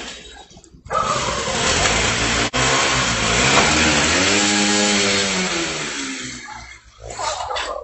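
A motor vehicle's engine revving hard under a loud rushing noise. It starts suddenly about a second in, its pitch climbs and then falls away in the middle, and it dies down near the end.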